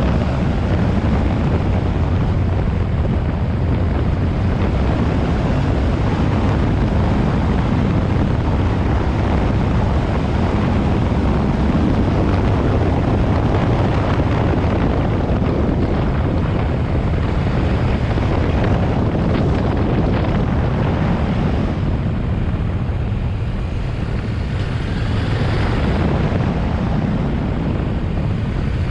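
Yamaha Ténéré 700's 689 cc parallel-twin engine running steadily under way, with wind rushing over the microphone. The engine eases off briefly about three-quarters of the way through, then picks up again.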